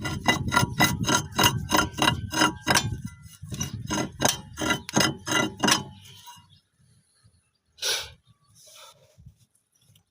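Rapid metallic knocks with a short ring, about four a second, in two runs of roughly three seconds and two and a half seconds. A single short scrape or rustle comes near the end.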